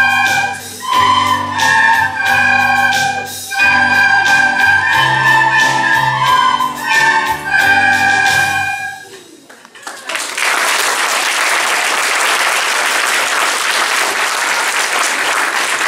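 A large group of children playing plastic soprano recorders in unison, a simple tune over a lower accompaniment. The music ends about nine seconds in, and the audience then applauds.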